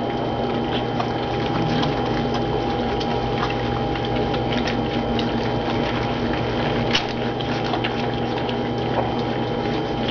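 A litter of young puppies lapping and smacking at wet puppy food in shared dishes: a constant mass of small wet clicks and slurps, over a steady background hum.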